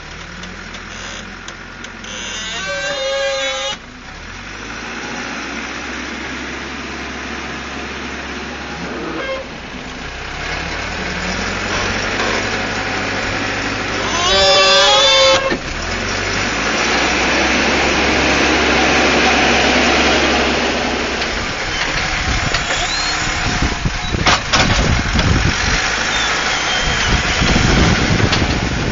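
Caterpillar 416C backhoe's turbo diesel engine working under load, its pitch rising and falling as the machine works. Two brief high wavering squeals cut through, about three seconds in and about fifteen seconds in. The last part turns rougher, with uneven low rumbling and knocks.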